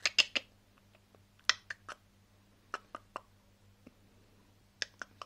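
Sharp short clicks in four quick groups of three, about one and a half seconds apart, over a faint steady hum: a person clicking to rouse a sleeping dog.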